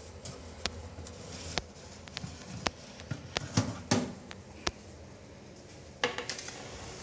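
Metal baking tray of bread rolls being pulled out of the oven, clanking and scraping against the oven rack in a series of sharp knocks. A burst of rattling comes about six seconds in, as the tray is moved onto the counter.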